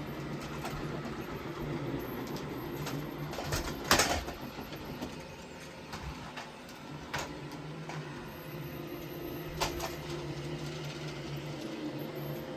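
Roomba i7 robot vacuum running with a steady motor hum. A few sharp knocks cut through it: the loudest about four seconds in, then two fainter ones later.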